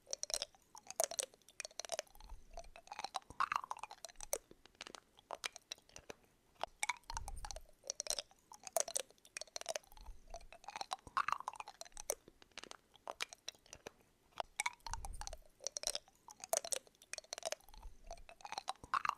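Close, crunchy chewing: a dense run of sharp crackling crunches with a soft low thud every few seconds.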